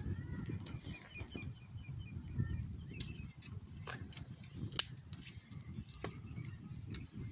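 A small bird chirping a quick run of short, evenly spaced high notes, over a steady low rumble with a few sharp clicks.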